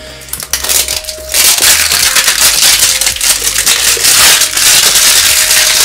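Packaging on a cube box being crinkled and pulled off by hand: loud, dense crackling and rustling that starts about a second in and keeps going.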